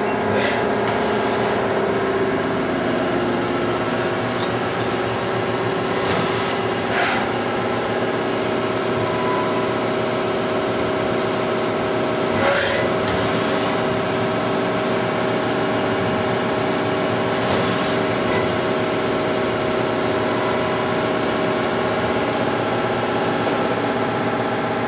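Haas HL-4 CNC turning centre running: a steady machine whine made of several overlapping tones, broken by four short hisses a few seconds apart.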